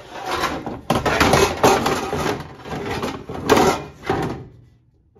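Metal baking sheets scraping and clattering against each other and the drawer as they are dragged out of the storage drawer under an oven, with a few sharp knocks. The noise stops about four and a half seconds in.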